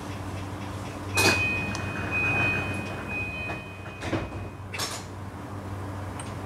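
Passenger sliding doors of a JR East E235-series train closing at a station stop. A sudden rush of sound about a second in starts a steady high tone that lasts about three and a half seconds. A click follows, then a second rush as the doors shut. A steady low hum from the stationary train runs underneath.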